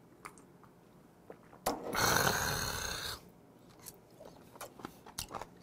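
A loud, breathy exhale of a man just after downing a shot of liquor, starting about two seconds in and fading over a second or so, followed by faint clicks of eating.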